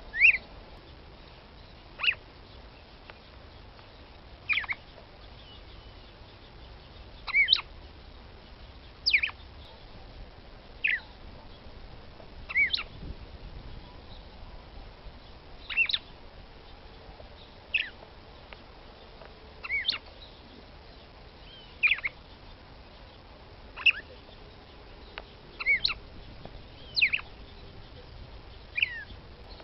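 Female red-cowled cardinal (galo-de-campina, Paroaria dominicana) calling to a male: short, sharp call notes about every two seconds, now and then in quick pairs, each dropping steeply in pitch.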